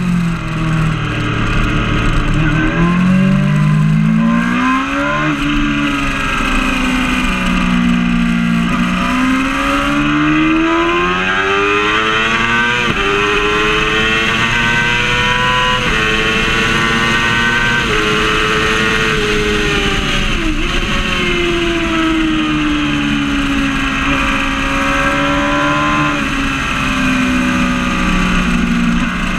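Yamaha R6 (5EB) 600 cc inline-four sport bike engine at track speed, the note rising and falling as the rider accelerates and brakes through the corners, with several sudden drops in pitch at gear changes.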